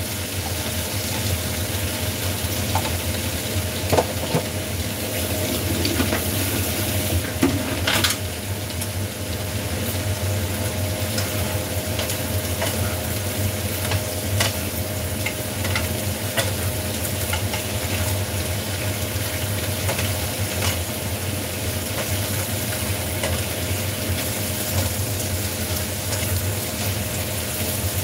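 Cabbage stir-frying in a wok over a gas flame: a steady sizzle, with scattered scrapes and taps as a wooden spatula and chopsticks toss it against the pan.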